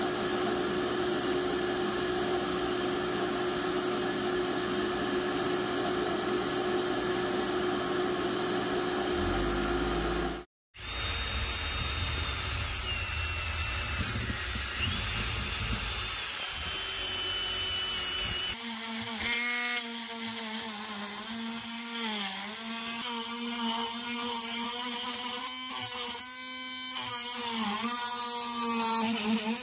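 Abrasive blasting in a blast cabinet, a steady hiss with a hum, cut off suddenly about ten seconds in. Then a cordless drill spinning a cup brush on cast iron, its whine stepping down in pitch. From just past halfway, a small rotary tool with a fine bit buzzes on the raised cast iron letters, its pitch dipping each time it bears on the metal.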